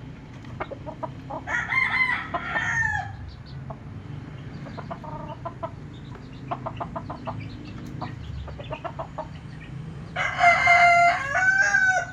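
Rooster crowing twice, each crow lasting about a second and a half and falling in pitch at the end, with chickens clucking in short notes between the crows.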